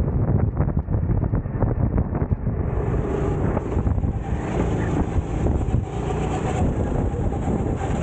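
Racing kart's engine running at speed, heard from onboard under heavy wind buffeting on the microphone. A brighter hiss joins about three seconds in.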